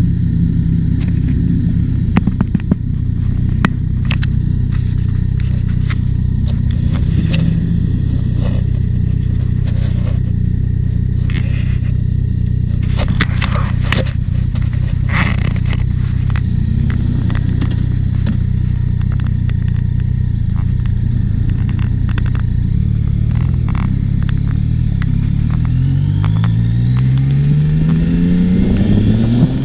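Yamaha XSR900's three-cylinder engine idling steadily, with scattered clicks and scrapes of handling close to the microphone. Near the end the bike pulls away and the revs rise twice as it accelerates through the first gears.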